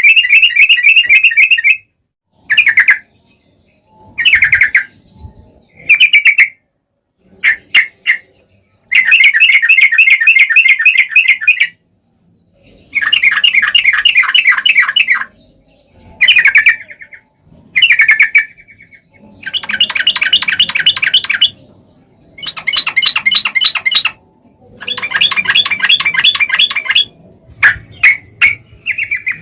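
Yellow-vented bulbul (trucuk) singing loudly in repeated bursts of rapid chattering notes, each burst one to three seconds long with short pauses between.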